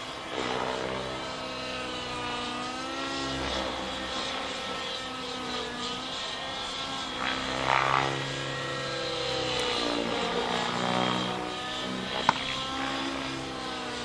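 Radio-controlled aerobatic helicopter in flight: the whine of its motor and rotors glides up and down in pitch as it manoeuvres, loudest about eight seconds in. A single sharp click comes near the end.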